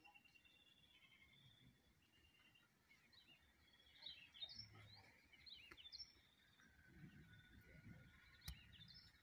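Faint birds chirping in short twittering bursts, mostly about four and six seconds in, over a quiet background with a faint steady high tone. A single faint click comes near the end.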